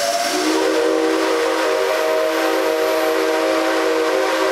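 Whistle of the C57 steam locomotive, sounding one long blast of several tones held together as a chord. It starts with a short upward slide and then holds steady.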